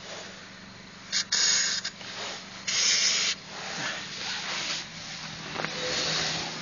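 Aerosol can of white grease spraying onto a car door latch in two short hisses about a second and a half apart.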